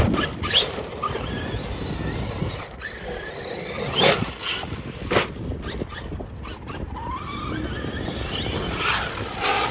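Losi DBXL-E 2.0 electric RC buggy running, its motor and drivetrain squealing, with several sharp clicks and knocks and a rising whine about seven seconds in. The sound fits the drivetrain failure the owner puts down to the pinion gear working loose and messing up the spur gear.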